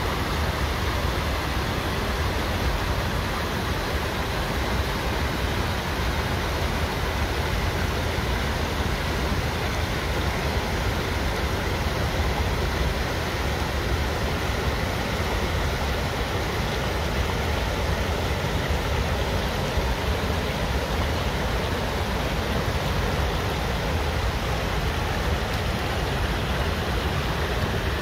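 Water pouring over a small stepped weir and rushing through a rocky stream: a steady, unbroken rush with a deep low rumble under it.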